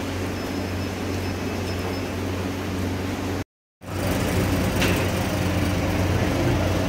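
Steady machine hum of running bakery ovens, with a strong low drone. The sound cuts out completely for a moment about three and a half seconds in, then resumes unchanged.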